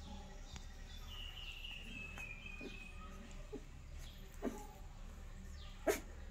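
Puppies suckling: a few scattered soft smacks and clicks, the sharpest near the end, over a low steady hum. A faint, high, slowly falling call lasts about two seconds, starting about a second in.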